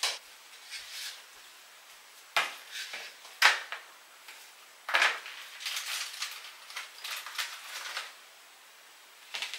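Takeout food being moved by hand from a foam clamshell container onto a plate: sharp clicks and clatters of the container and plate on the counter, a few of them spaced about a second apart, then a run of lighter taps and rustling from about five seconds in.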